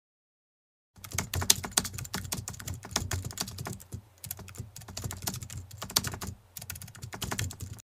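Computer keyboard typing sound effect: a fast run of keystroke clicks that starts suddenly about a second in, pauses briefly twice, and stops just before the end, in time with on-screen text typing itself out.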